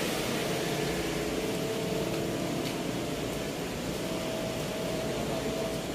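Steady mechanical hum: an even noise with a faint held tone over it, with no change.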